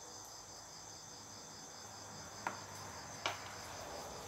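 Crickets chirping in a steady, fast, evenly pulsing high-pitched trill, with two sharp clicks partway through.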